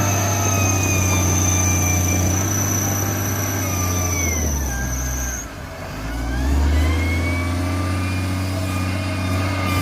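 Heavy loader and bulldozer diesel engines running under load. The engine note drops and sags a little past halfway, then rises again. A steady high whine stops about halfway through.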